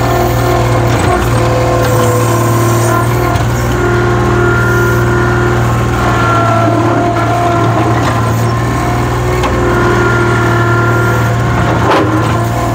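New Holland LS140 skid steer loader's diesel engine running steadily as the machine drives back and forth working dirt with its bucket. A brief knock comes near the end.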